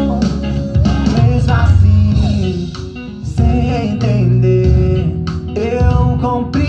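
A song with plucked guitar and bass guitar accompaniment and a man singing a melody with no clear words.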